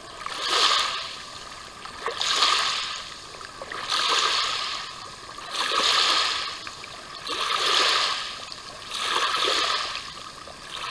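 Small waves washing onto a sandy shore in an even rhythm, one surge about every two seconds.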